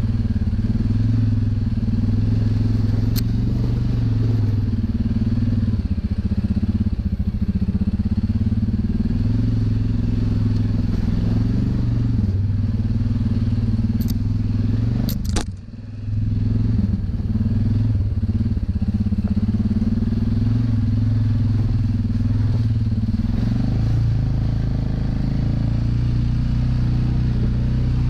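ATV engine running steadily under way, with a brief dip in sound a little past halfway before it picks up again.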